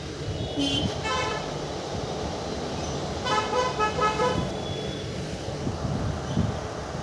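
A horn sounds twice, a short blast about a second in and a longer, wavering one about three seconds in, over the steady low rumble of a moving train.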